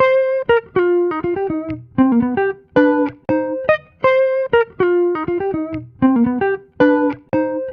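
Background music: a melody of quick plucked-string notes on a guitar-like instrument, the same short phrase repeating about every four seconds, with no singing.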